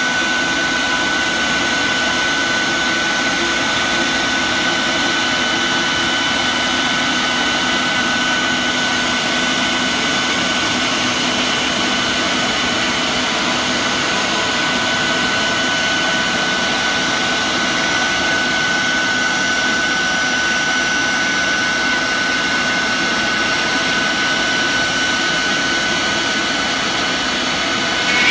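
CNC router cutting a SIP panel: the spindle holds a steady high whine over a constant rushing noise from the cut and the dust extraction.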